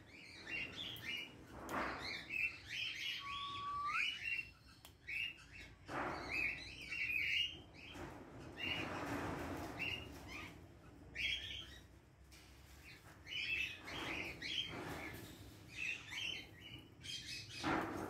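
Many small birds chirping, short high chirps coming in quick clusters over and over, with a single rising whistle about three seconds in.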